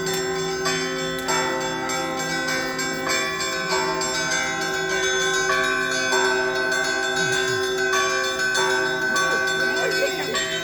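Russian Orthodox church bells ringing a festive peal: many bells of different pitches struck in quick succession, their tones ringing on and overlapping throughout.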